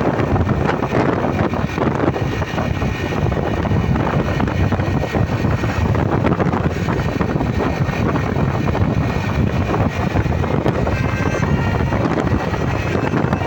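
Buses in a convoy passing, with a steady engine and road rumble and heavy wind buffeting on the microphone.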